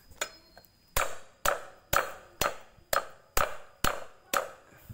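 A machete blade striking a round wooden chopping block, bashing turmeric root to crush it: about eight sharp knocks, roughly two a second.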